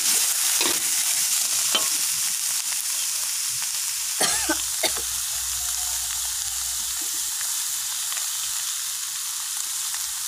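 Papaya flowers stir-frying in a wok: a steady sizzle of hot oil, with a metal spoon clinking and scraping against the wok a few times, most about four seconds in.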